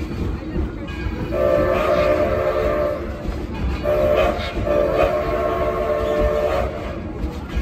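Steam locomotive whistle blowing two blasts, a short one then a longer one, over the low rumble of the moving train.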